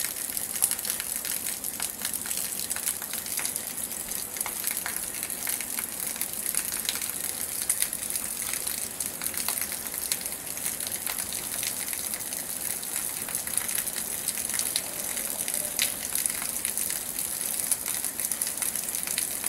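Heavy rain falling onto standing muddy floodwater: a steady, dense hiss of drops splashing on the water surface, with many small individual patters.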